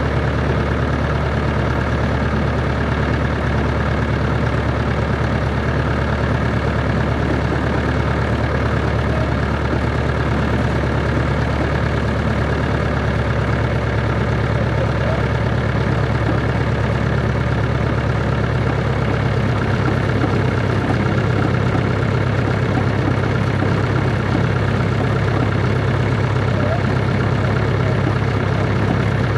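Cessna 140's piston engine and propeller running steadily, with a slight change in its low drone about two-thirds of the way through.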